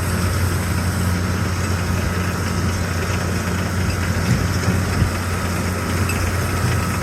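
Tractor engine and baler running steadily while baling, a constant low hum with a couple of faint knocks about four and five seconds in. The intermittent noise that the baler makes at medium bale sizes sounds to have stopped.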